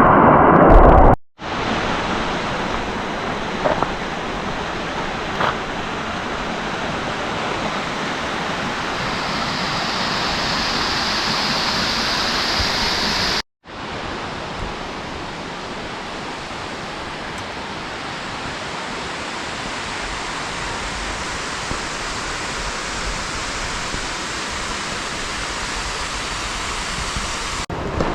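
Steady rush of a waterfall, an even wash of water noise. It is broken twice by a brief drop to silence, about a second in and again about halfway through. A louder blast of noise fills the first second.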